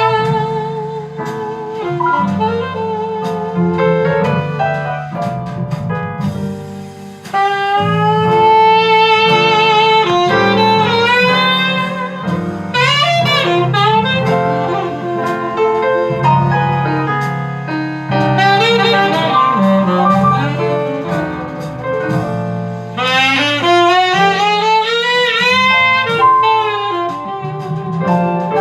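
Recorded instrumental music played back through an Altec 32A right-angle horn loudspeaker: a jazz-style lead melody with vibrato over a steady bass line.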